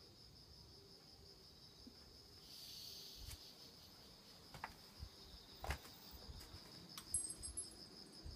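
Faint, steady high-pitched insect trilling that pulses evenly throughout. A brief rustle comes about three seconds in, followed by a few scattered light clicks and taps.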